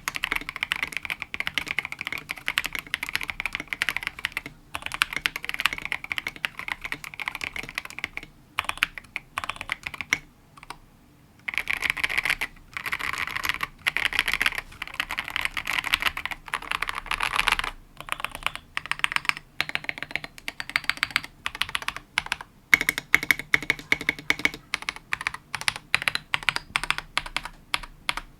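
Fast typing on a KBD67 Lite R2 gasket-mount mechanical keyboard with C³EQUALZ Tangerine linear switches, Domikey SA-profile keycaps and a polycarbonate plate: a rapid stream of keystrokes, with a brief pause about ten seconds in.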